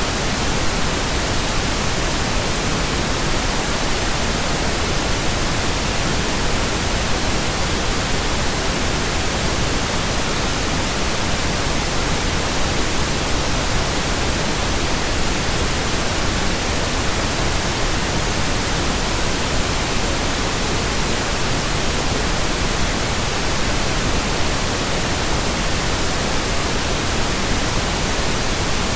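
Steady synthetic pink noise: an even, unbroken hiss spread across all pitches, with no tone, pulse or change.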